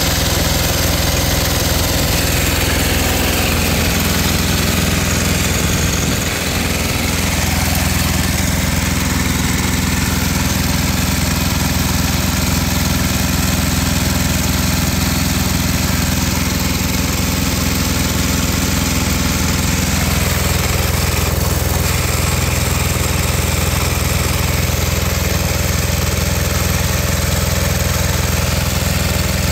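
Yanmar-clone 186F single-cylinder diesel generator engine running loudly at a steady, even speed.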